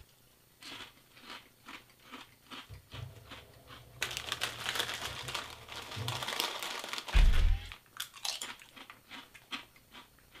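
Kettle-cooked potato chips crunching as they are chewed, about two crunches a second. From about four to seven seconds in, the chip bag crinkles steadily as a hand goes into it, and there is a low thump near seven seconds before the chewing crunches resume.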